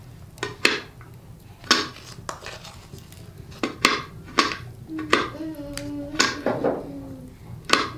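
Small metal spoon clinking and tapping against a cooking pot and bowl while spice is spooned into soup: a string of sharp separate clinks, some in quick pairs.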